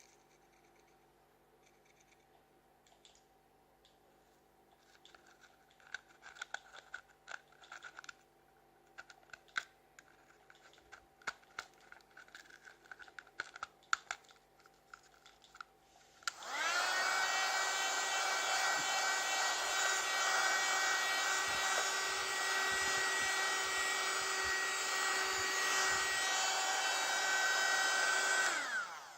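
Small plastic clicks and rattles from handling, then a mini USB vacuum cleaner's small motor switches on about halfway in. It runs steadily with a high whine for about twelve seconds, then switches off and winds down.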